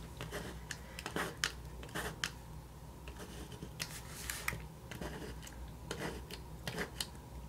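BIC Wite-Out correction tape dispenser pressed and drawn in short strokes across smooth planner paper, giving scattered soft rasps and clicks.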